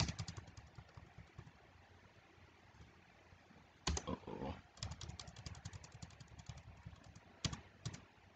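Computer keyboard keys being pressed: a short cluster of clicks at the start, a sharp click about four seconds in, then a rapid run of keystrokes and two last clicks near the end.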